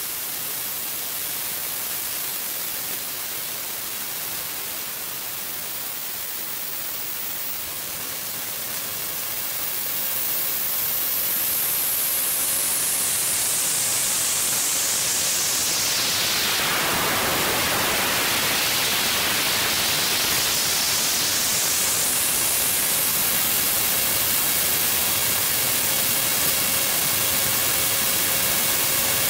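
Loud, steady hiss of static-like noise that grows louder about ten seconds in. Around the middle a smooth whooshing sweep falls in pitch and then rises again.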